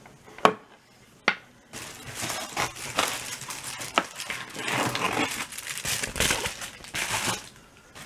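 Two sharp knocks in the first second and a half, then plastic bubble-wrap packaging crinkling and rustling as it is handled, stopping shortly before the end.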